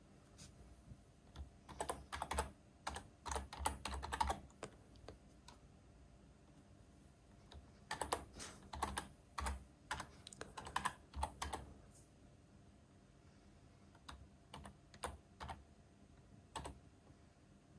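Typing on a computer keyboard: runs of quick keystrokes with pauses between them, thinning to a few single keystrokes near the end.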